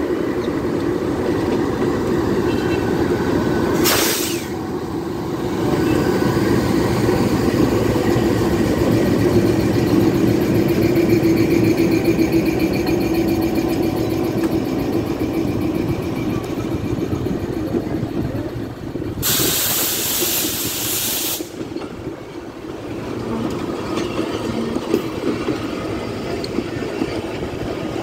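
GE U20C diesel-electric locomotive passing close by, followed by its passenger coaches rolling past with a steady rumble of wheels on the rails. A short sharp hiss comes about four seconds in, and a longer hiss of about two seconds comes around twenty seconds in.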